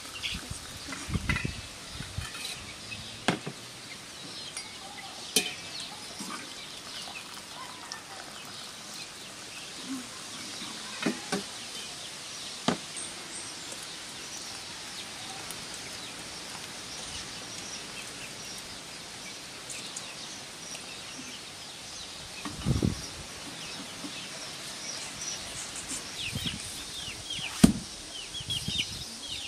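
Chickens and small birds in a yard: scattered clucks and short high chirps, busiest near the end. A few sharp knocks and clinks sound through it, the loudest near the end.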